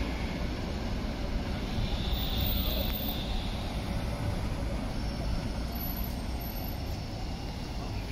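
City street traffic at a tram junction: a tram moving slowly across the tracks and cars driving past, making a steady low rumble.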